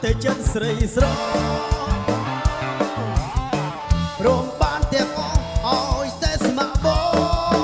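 Background music with a steady drum beat and a singing voice.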